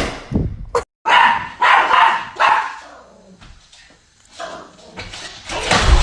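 Small dog barking several times in quick succession.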